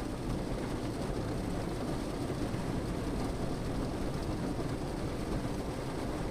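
Rain pattering steadily on a car's roof and windows, heard from inside the car.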